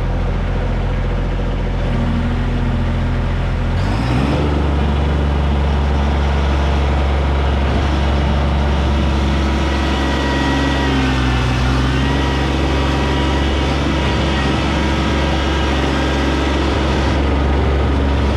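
Kubota B2301 compact tractor's diesel engine running steadily. About four seconds in it speeds up to a higher, steady pitch, as when the throttle is raised to work the backhoe.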